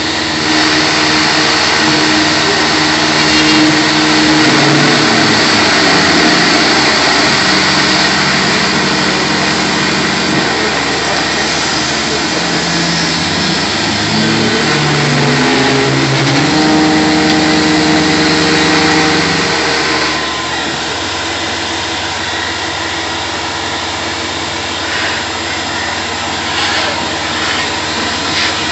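Tormach PCNC 1100 CNC mill cutting a UHMW polyethylene disc, with a shop vacuum running hard at the cutter to pull away the chips. Through the middle, the mill's axis motors whine in steady tones that step up and down in pitch as the tool moves, then stop about twenty seconds in, leaving the vacuum and spindle running.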